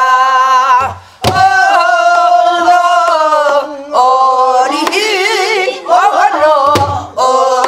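A woman singing the refrain of a Namdo folk song in the pansori-trained style, long held vowel vocables ('a-ha-a-a, eo-heo-eong, eo-gi-ya') with wide vibrato. She accompanies herself on a buk barrel drum, with drum strokes about a second in and near the end.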